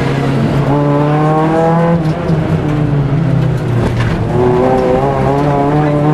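Rally car's engine heard from inside the cabin, revving up hard under acceleration, dropping in pitch about two seconds in, then climbing again toward the end.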